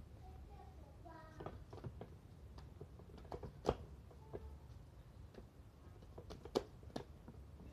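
Soft wet slaps and knocks of slices of marinated meat being handled and pressed onto a vertical trompo spit, with a few sharper knocks, the loudest about three and a half seconds in and again about six and a half seconds in.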